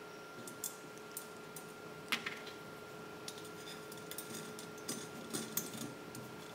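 Faint, scattered clicks and taps of small metal parts: socket head cap screws and an aluminum motor mount handled against an aluminum channel while being bolted together. One click about two seconds in is louder than the rest, and a few come close together near the end.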